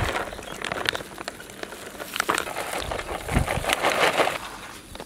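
A clear plastic bag crinkling and rustling as grated cheese is shaken out of it into a stainless-steel bowl, in uneven bursts with small crackles.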